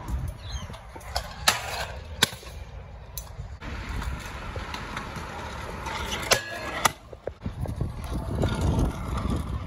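Stunt scooter wheels rolling over skatepark concrete, with several sharp clacks of scooters landing and hitting the ground.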